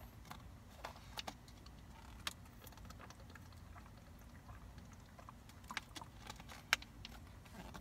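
Faint, scattered light clicks and crinkles from a clear plastic water bottle being handled, drunk from and capped.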